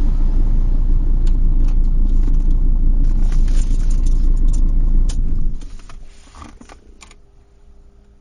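Loud steady low rumble that dies away about five and a half seconds in, leaving a faint hum and a few light clicks.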